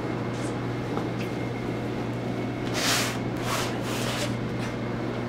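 A steady low machine hum with a faint high whine, and three short swishing noises in quick succession about three seconds in.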